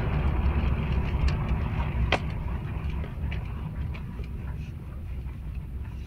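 Road and running noise of a 2014 Honda Fit Shuttle Hybrid heard from inside its cargo area, a low rumble that fades steadily as the car slows under regenerative braking toward a stop. A single sharp click about two seconds in.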